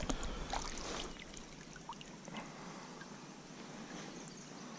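Quiet water around a kayak: light splashing and dripping in the first second, then soft trickling with a few faint clicks.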